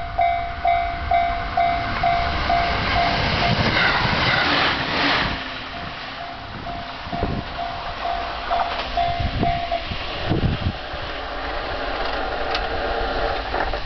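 Japanese level-crossing warning bell ringing about twice a second while a train passes over the crossing, loudest around four to five seconds in. The bell stops just under ten seconds in, while the train's running noise carries on.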